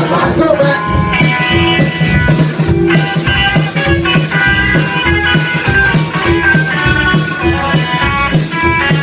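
A live rock and roll band playing an instrumental break: electric guitar lines over bass and a steady drum beat.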